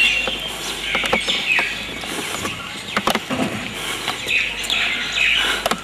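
Small birds chirping repeatedly, with scattered sharp clicks among the calls.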